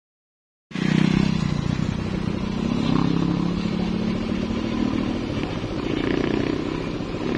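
A moment of silence, then about a second in a motorcycle engine cuts in suddenly and keeps running steadily as the trail bike climbs a dirt track, its pitch dipping and rising slightly.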